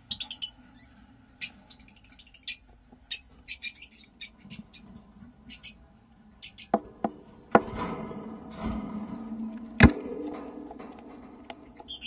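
Small pet parrots chirping: a quick string of short, high chirps through roughly the first half. Then a few knocks and a rustling scrape, with one sharp knock shortly before the end.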